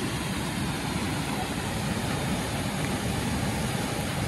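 Bagmati River in flood: muddy floodwater spilling over a low weir and churning through rapids, a steady rushing noise with no let-up.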